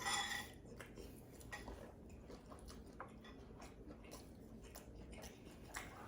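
Faint eating sounds: chewing with scattered small clicks, and a brief louder noise right at the start.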